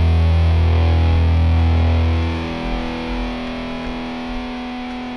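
Background music: a distorted electric guitar holding a loud low chord that drops away about two seconds in, leaving quieter sustained notes.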